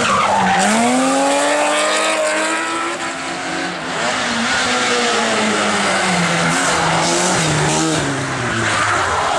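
Rally cars on a hillclimb: a BMW 3 Series (E36) coupé passes close and accelerates away, its engine pitch dipping then climbing, followed by a small hatchback rally car revving through a bend with its engine pitch dropping and rising again.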